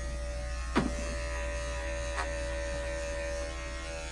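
Electric dog grooming clippers running with a steady buzz, with a sharp click about a second in and a lighter one a second and a half later.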